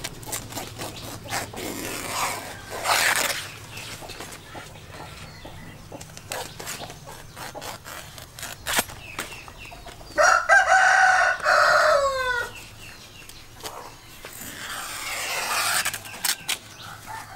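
A rooster crows once, a long call about ten seconds in that drops in pitch at its end. Around it, a knife cuts and rustles large banana leaves with scattered clicks and swishes.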